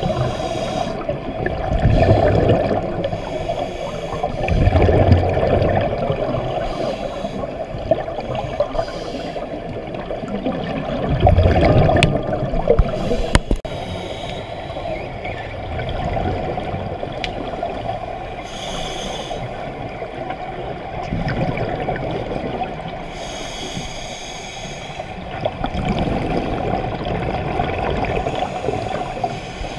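Scuba divers breathing through their regulators, heard underwater: exhaled bubbles rumbling and gurgling in surges every few seconds, the strongest in the first twelve seconds, with a short hiss now and then.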